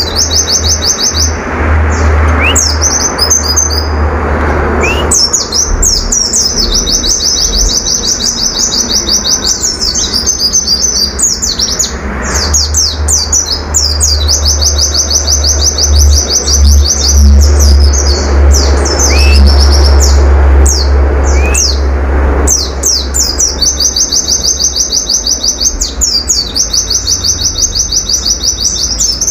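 Caged white-eye (pleci) singing its rapid 'nembak' song: long runs of fast, evenly repeated high notes broken by short chirps, with barely a pause. A steady low rumble runs underneath.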